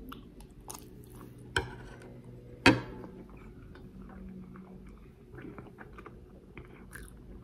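A person chewing a mouthful of rice with stewed aubergine and dried fish, with small mouth clicks and smacks. Two sharp clicks stand out, about one and a half and nearly three seconds in, the second the loudest.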